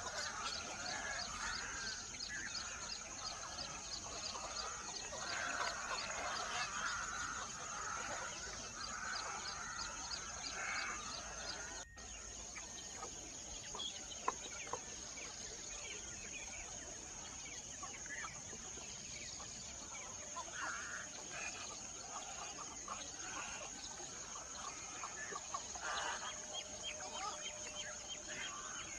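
Several birds calling and chattering over a steady high-pitched tone, with a fast ticking trill through the first several seconds.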